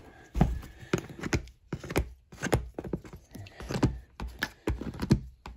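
Diagonal cutters gripping and prying old staples out of a plastic ATV seat pan: an irregular series of sharp clicks and knocks, with the tool and hand scraping against the hard plastic.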